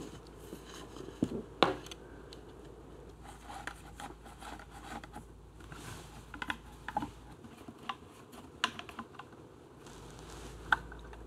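Small metal clicks, taps and scrapes of hand work on an engine bench as parts, wire and tools are handled, with a sharp click about one and a half seconds in and another near the end.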